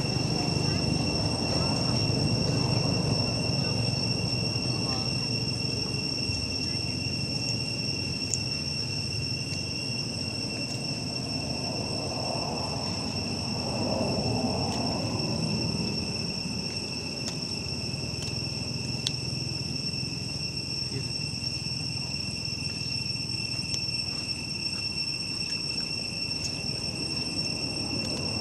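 Steady insect chorus: a continuous high-pitched buzz holding one pitch, over a low background rumble.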